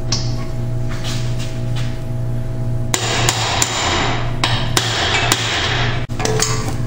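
Hammer blows on a metal drift driving the front pinion bearing race (cup) into a GM 8.5-inch 10-bolt differential housing to seat it. A few separate sharp strikes come first, then a quicker run of strikes from about three seconds in.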